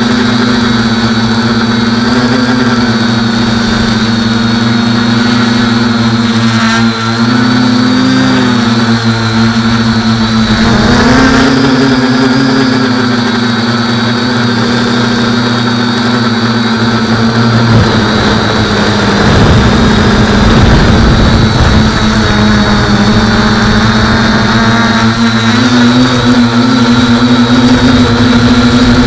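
Quadcopter's electric motors spinning 8x5 carbon propellers in flight: a loud, steady buzz whose pitch rises and falls a few times with the throttle. About two-thirds of the way through, a low rumbling rush lasts for a few seconds.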